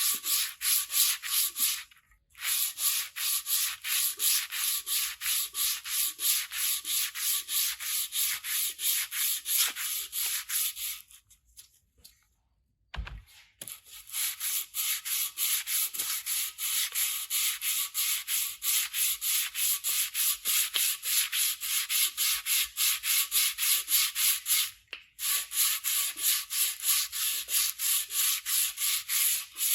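Sandpaper being rubbed back and forth on the aluminium exhaust canister of a 1998 Honda CBR 900 RR, as a run of rapid, even, scratchy strokes. The sanding pauses briefly about two seconds in and again near the end. Near the middle there is a longer break, with one short knock.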